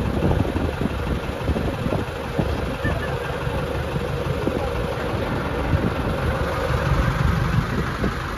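Motor boat's engine running steadily under way, a low rumble with a faint steady hum.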